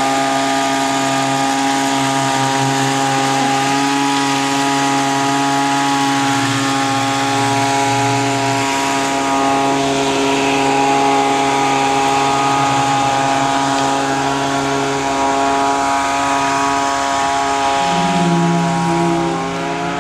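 Leaf blower running steadily at full speed, driving air into a homemade plywood hovercraft's plastic skirt.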